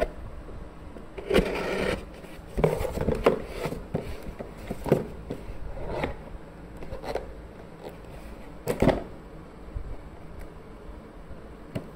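Cardboard shipping box being opened: a blade cutting through the packing tape, then the cardboard flaps scraping and rubbing as they are pulled apart. It comes in several irregular bursts with sharp clicks, the loudest near the end.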